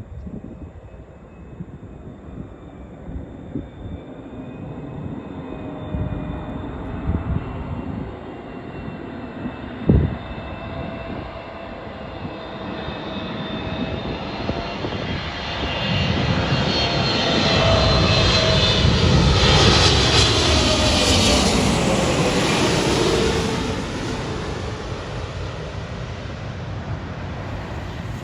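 Boeing 777-300ER's twin GE90-115B turbofans on landing approach: the engine whine builds to its loudest about two-thirds of the way in, then falls in pitch as the jet passes. A single sharp knock sounds about ten seconds in.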